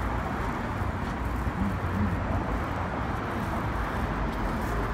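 Steady outdoor traffic noise with a low rumble.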